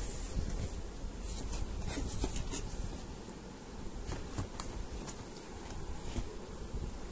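Hands handling a cardboard box and its plastic packing straps: irregular crinkles, scrapes and clicks as the packaging is pulled off and the box is opened, busiest in the first few seconds.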